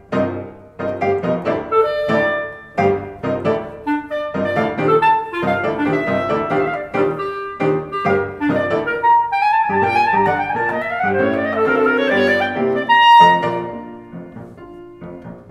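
Clarinet playing a classical solo over a piano accompaniment, with a quick rising run of notes about ten seconds in. Near the end the clarinet stops and the piano goes on more quietly.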